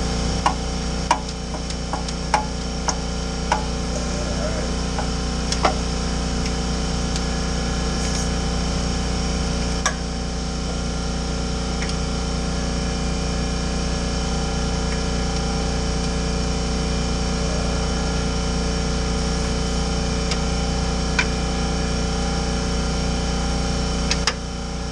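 Steady machine hum with sharp, spaced metal clicks and clinks from hand tools (a ratchet and wrenches) working on bolts under a vehicle. The clicks come mostly in the first six seconds, with a few more later, and the hum eases slightly near the end.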